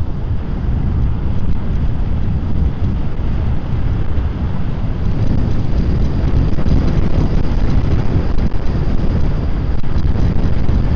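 Wind rushing over a clip-on wireless microphone (DJI Mic 2 transmitter fitted with its windscreen) on a moving electric scooter rider: a steady, loud low rumble.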